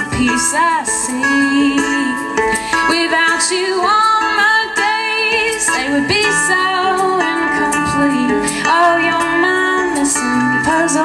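Live acoustic folk song: a woman sings a gliding, wavering melody over a strummed small-bodied acoustic stringed instrument, with an egg shaker keeping a steady rhythm of short hissy shakes.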